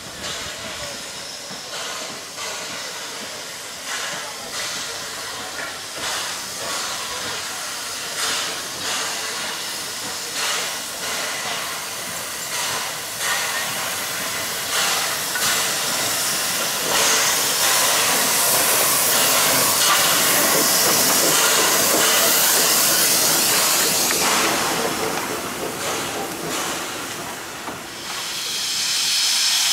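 Two LB&SCR Class A1X 'Terrier' 0-6-0 tank locomotives double-heading, their exhaust beating as they work towards the listener, then a loud steady hiss of steam as they pass close by, just past the middle.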